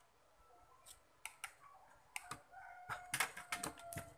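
Scattered clicks and light taps from handling small parts and tools on a workbench. Behind them, a faint drawn-out call starts about halfway through and falls slightly in pitch until near the end.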